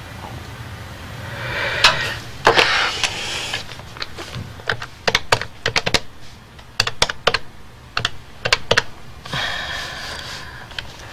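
Telephone handset handled with a rustle, then about a dozen sharp button clicks in quick runs as a number is dialled on the phone's keypad, followed by more rustling of the handset.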